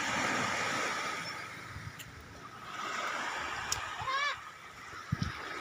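Sea waves washing onto a sandy beach, the noise swelling twice. A short rising call comes about four seconds in, and a low thump near the end.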